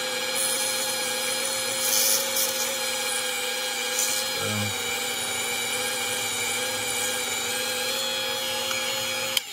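Rotary tool running at a steady speed with a steady whine, spinning a small brass pin against 2000-grit sandpaper to polish it. The sanding adds brief hiss about two and four seconds in, and the tool switches off abruptly just before the end.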